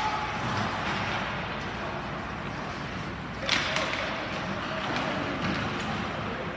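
Ice hockey play heard from the stands of an indoor rink: a steady hubbub of skating and distant voices, with one sharp crack of a stick or puck impact about three and a half seconds in.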